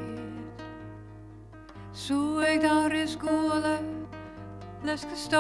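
A woman singing to her own classical guitar. The guitar's notes ring on alone and fade for about two seconds, then her voice comes in with a held, wavering line, and comes in again near the end.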